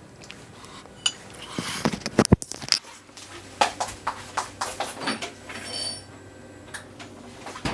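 Close-miked eating sounds: chewing with wet mouth clicks and smacks. There is a louder, busier stretch about two seconds in.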